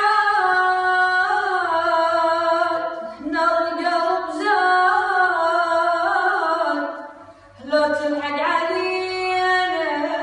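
A boy singing unaccompanied in a high voice, holding long notes that bend and waver. He breaks briefly for breath about three seconds in and again about seven seconds in.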